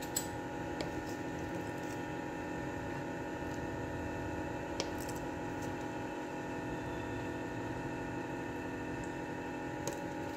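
A steady machine hum made of several fixed tones, with a few faint clicks spread through it.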